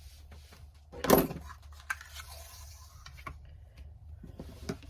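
Craft supplies being handled: scattered light clicks and a soft rustle, with one louder knock about a second in.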